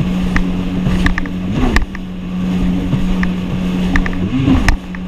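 2019 Yamaha FXHO WaveRunner's engine running at speed with a steady drone that wobbles in pitch twice, under the rush of wind and water. Sharp slaps sound now and then as the hull hits the chop.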